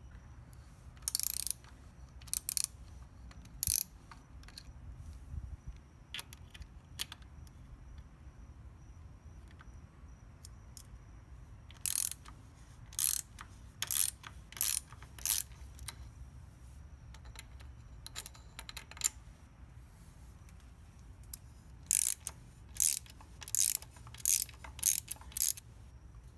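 A hand ratchet clicking in short quick runs as a Torx bit backs out small screws, coming in three spells with pauses between.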